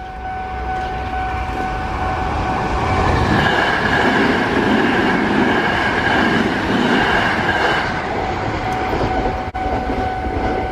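Japanese railway level-crossing warning bell ringing steadily while a Sanyo Electric Railway train passes over the crossing; the train is loudest from about three to eight seconds in.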